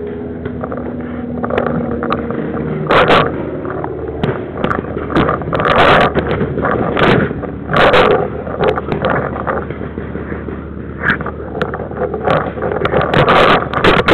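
Paintball markers firing: scattered sharp pops, then a quick string of shots near the end, over a steady rumble and rustling of handling and wind on the marker-mounted camera.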